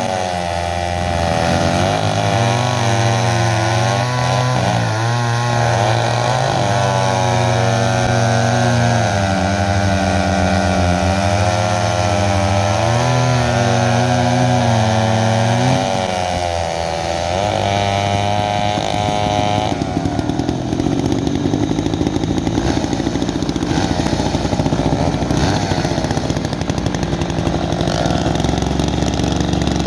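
Two vintage chainsaws running together while cross-cutting logs, their engine pitch rising and falling as the chains load up in the wood. About twenty seconds in, the sound turns to a rougher, steadier running.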